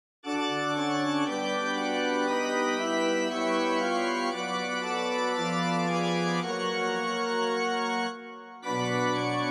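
Organ playing slow, sustained chords that change every second or two, breaking off briefly about eight seconds in.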